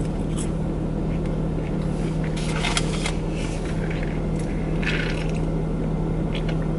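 Steady low hum of an idling car heard from inside the cabin, with short crackling and rustling bursts of eating and of a large paper cup being handled and drunk from, once about two and a half seconds in and again near five seconds.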